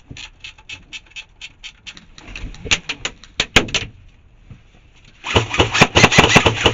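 Airsoft electric guns firing: a string of shots, then about five seconds in a loud, fast full-auto burst from an AEG, which the shooter blames on a faulty fire-mode switch that fires full auto while set to semi.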